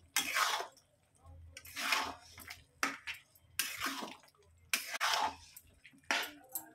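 A spatula stirring wet keema and liver masala in a wok: about six squelching, scraping strokes, roughly one a second, through the watery mixture.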